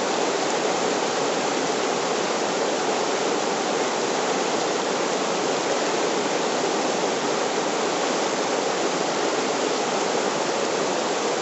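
Whitewater rapids rushing over rocks: a steady, unbroken roar of churning water.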